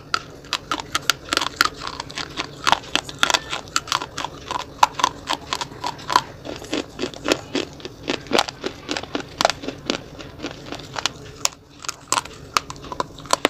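Slate pencils being bitten and crunched between teeth, close to the microphone: sharp, irregular cracks several times a second with chewing in between.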